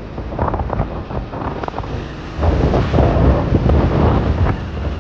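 Wind buffeting the microphone on a moving two-wheeler in street traffic, over a low road and engine rumble. The gusts are heaviest in the second half, and there are a few knocks of handling in the first half.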